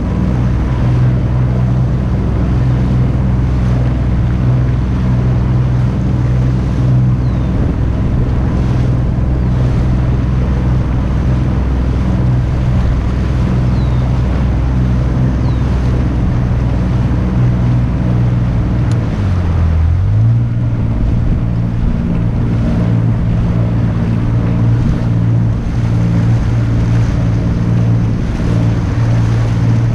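Tohatsu outboard motor running under way on a Boston Whaler 13, a steady hum that dips in pitch about two-thirds of the way through and then picks back up. Water rushes past the hull, with wind on the microphone.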